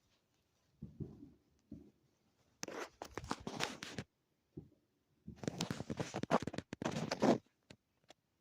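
Firework crackle: two dense bursts of rapid popping, a shorter one about a third of the way in and a longer one of about two seconds after the middle, with a few single pops between.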